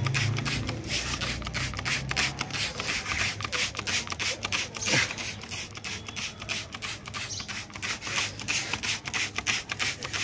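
Hand trigger spray bottle being pumped quickly, each squeeze a short hissing squirt of spray, about three or four a second. A low hum is present in the first couple of seconds.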